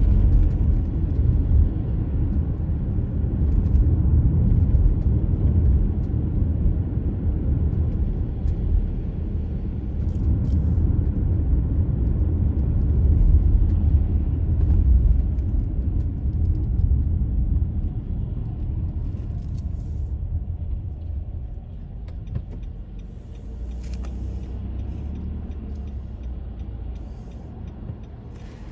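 Car driving on a suburban road: a steady low rumble of engine and tyre noise. It grows quieter about two-thirds of the way through.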